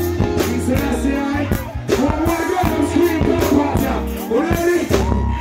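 Live reggae band with a man singing into a microphone over it: a steady bass line, keyboards and regular drum hits under the amplified vocal.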